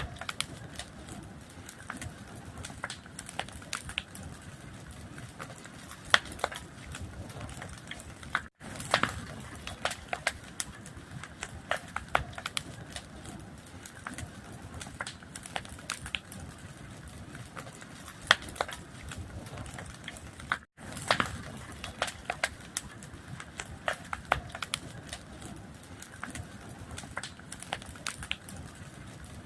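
Wood fire burning with a steady low hiss and frequent irregular crackles and pops. The sound drops out for an instant twice, about a third and about two-thirds of the way through.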